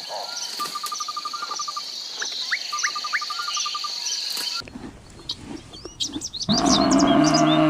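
Steady high insect buzz with repeated bird trills and short rising chirps. After a sudden cut come high bird chirps, and near the end a loud, low, pitched animal call begins.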